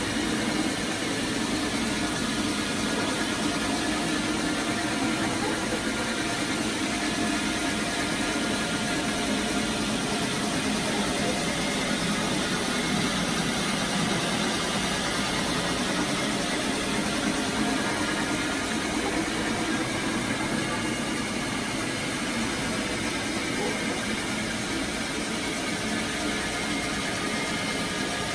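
Carpet steam-cleaning extraction machine running steadily: a constant motor drone under a broad hiss that never lets up.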